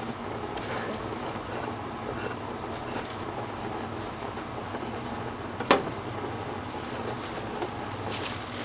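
Steady background noise of a street-food stall, with faint clinks and one sharp clack about six seconds in.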